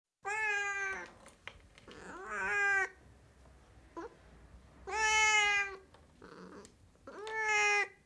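Sphynx cat meowing: four drawn-out meows about two seconds apart, with a brief chirp between the second and third.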